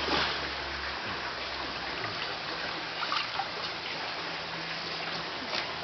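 Water running and trickling steadily at a koi farm's holding tanks, with a few small splashes, one about three seconds in and one near the end, over a low hum that stops about a second in.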